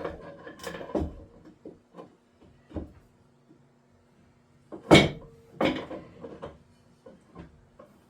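Irregular metal clanks and knocks of a pipe wrench being handled and set against a drive shaft's U-joint end caps. The loudest knock comes about five seconds in. A faint steady hum runs underneath.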